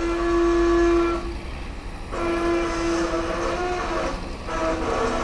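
Heavy diesel machinery working under load: a steady, pitched engine-and-hydraulic drone that swells three times, with short dips between the spells.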